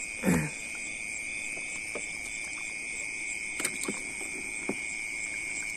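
Night insects chirring steadily, a constant high buzz with a faster, higher pulsing chirp over it. A short falling call sounds about a quarter second in, and a few light knocks come near the middle.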